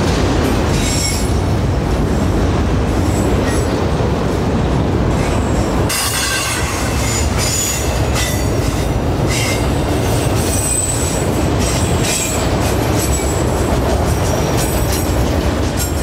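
Freight train rolling slowly through a sharp curve, its steel wheels squealing against the rail over a steady low rumble. The high squeals come and go, growing stronger and more frequent from about six seconds in.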